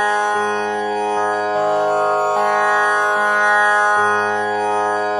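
Calm instrumental background music, with sustained notes over a low line that changes note about once a second.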